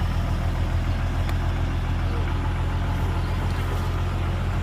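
Heavy diesel engine of a bulldozer or dump truck running steadily with a low, even hum, without revving.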